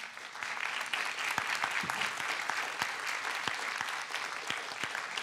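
Audience applause at the end of a talk, building up quickly and holding steady.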